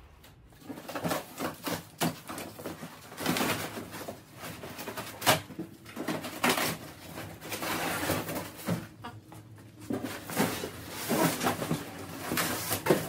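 A large cardboard shipping box being pulled up and lifted off an ATV's steel shipping crate: irregular scraping and rustling of cardboard, with several knocks, the sharpest about five seconds in.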